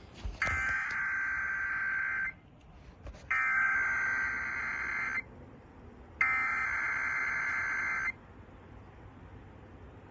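Emergency Alert System SAME header: three bursts of screechy digital data tones, each about two seconds long with a gap of about a second between them. They encode the start of a Required Weekly Test.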